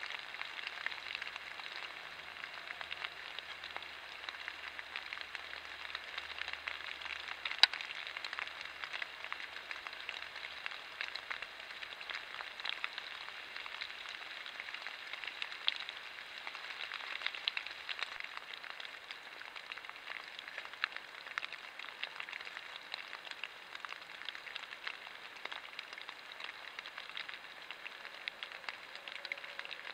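Light rain pattering and dripping on leaves and forest litter, a steady crackle of many small drops, with one sharper click about eight seconds in.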